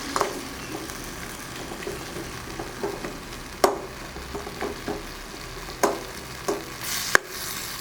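Tomatoes frying in oil with onions and spices in a pan, sizzling steadily while being stirred, the spatula knocking against the pan a few times.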